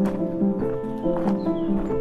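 Background music: sustained pitched chords over a steady clicking beat.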